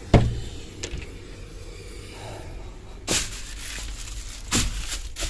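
Knocks, bumps and rustles of someone climbing into an excavator cab, with a sharp knock just after the start and rougher scuffs and bangs about three and four and a half seconds in.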